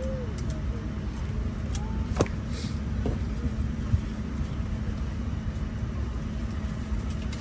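Steady low drone of a Boeing 787-10 airliner cabin, with a held hum underneath. A sharp click about two seconds in and a few lighter clicks and rustles as a printed card is handled.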